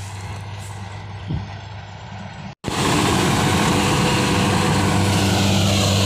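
Rice combine harvester's engine running steadily while it harvests, faint at first. After a momentary dropout a little under halfway in, it is much louder and closer.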